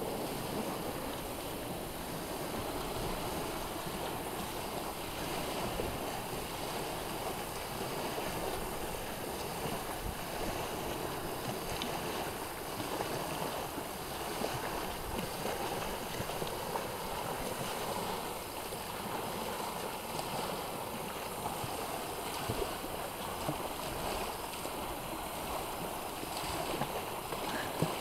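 Steady outdoor noise of small waves washing onto a sandy lakeshore, mixed with wind on the microphone, with a few faint ticks scattered through it.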